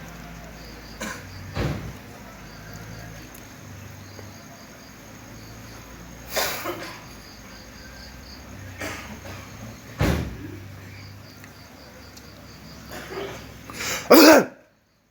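A person coughing in loud, harsh bursts, about six times spread out, the loudest near the end, over crickets chirping steadily in the background. The sound cuts off abruptly just before the end.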